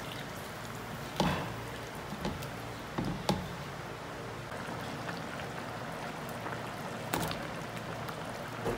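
Wooden spatula stirring a simmering lentil curry in a wok: a steady bubbling and sloshing of liquid, with a few sharp knocks of the spatula against the pan, about a second in, twice around three seconds in and once near seven seconds.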